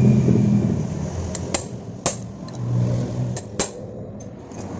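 Sharp metal taps of a hammer on the seal-housing cover of a Honda Grand's engine as it is worked loose, five or so strikes with the loudest about two and three and a half seconds in, over a low steady hum.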